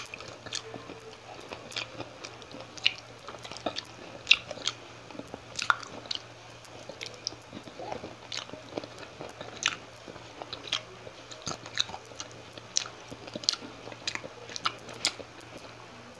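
Close-miked chewing of fried milkfish (bangus), with crisp little crunches and wet mouth clicks coming at irregular moments.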